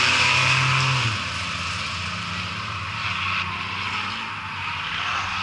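Race cars' engines running on a paved oval. One engine is loud for about the first second, then fades as it pulls away, leaving the steadier sound of several cars lapping farther off.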